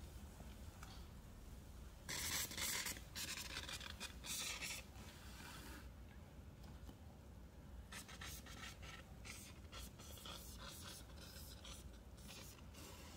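A powdery baking-soda and baby-powder mix being squeezed and rubbed by hand, giving dry scratchy crunching. It comes in two spells: a louder stretch from about two to five seconds in, then a run of short scratches near the end.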